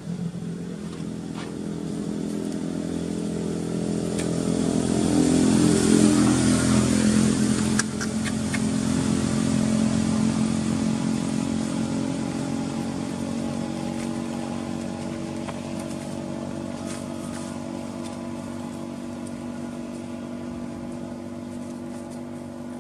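Engine of a passing motor vehicle. It grows louder to its peak about six seconds in, dips slightly in pitch, then fades slowly away.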